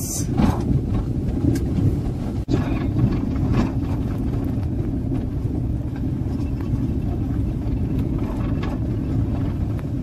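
A car driving over an unpaved dirt track, heard from inside the cabin: a steady low rumble of engine and tyres, with a few light knocks from bumps in the track.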